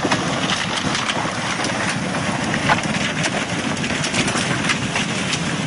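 Flash-flood torrent of muddy water and debris rushing down a creek bed: a loud, steady rush with frequent sharp cracks and clicks mixed in.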